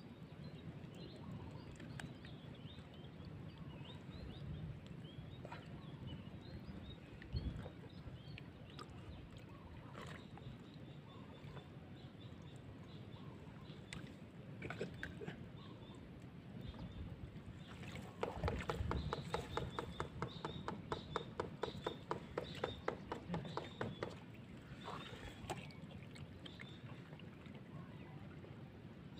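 Wet mud squelching and water sloshing as a hand digs into a mud crab burrow under an old stump. Past the middle comes a rapid, rhythmic run of wet squelches lasting several seconds.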